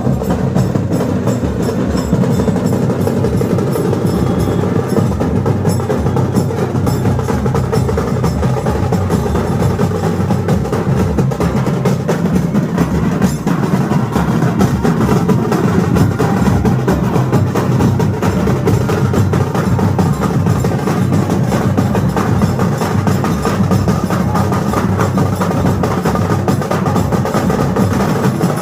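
Loud music driven by fast, dense drumming that keeps a steady, unbroken rhythm throughout.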